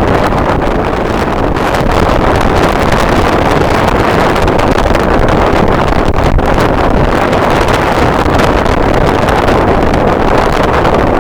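Strong wind blowing across the microphone: a loud, steady rumbling noise with no pitched tone in it.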